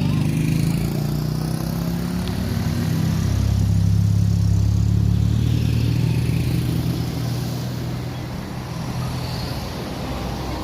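Road vehicle engine running close by, swelling to its loudest about four seconds in and then fading as it passes.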